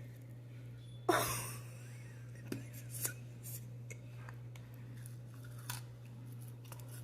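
A person eating seasoned French fries: a loud rustle about a second in, then scattered small crunching and chewing clicks over a steady low hum.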